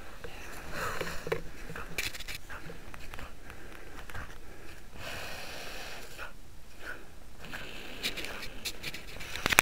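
Sniffing and breathing close by, coming in a few short spells about three seconds apart.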